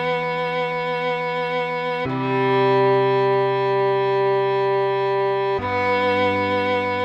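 Solo cello playing a slow melody in long held notes with vibrato, moving to a new note about two seconds in and again about five and a half seconds in.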